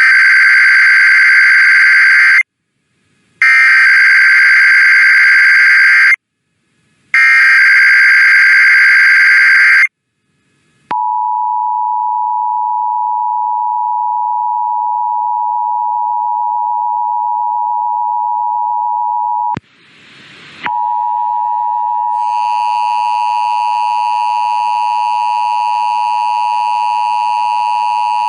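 Emergency Alert System test. First come three bursts of the SAME header's screeching data tones, each about two and a half seconds long with a second's gap between them. Then the two-tone attention signal holds steady for about nine seconds. After a brief crackle of noise, a second, distorted attention tone starts about twenty seconds in and runs on.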